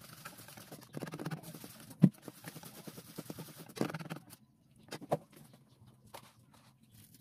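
Wire whisk beating batter in a steel bowl: quick clicking and scraping of the wires against the metal, with one sharp knock about two seconds in. The whisking stops after about four seconds, and then come only a couple of light clicks.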